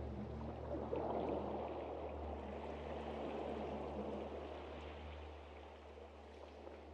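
Stream water rushing and gurgling, with a soft, low, steady drone of ambient music beneath it that thins out partway through.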